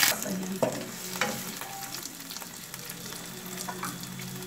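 Red onion pieces sizzling in hot oil in a frying pan, the first stage of a sauté: a loud hiss at the very start that settles to a steady, softer sizzle, with a few short clicks from a wooden spatula stirring them.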